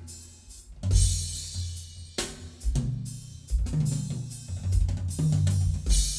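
Percussion track played back through a vintage Sansui QRX-7500 receiver: a drum kit with kick, snare and hi-hat over held low bass notes, with cymbal crashes about a second in and again near the end.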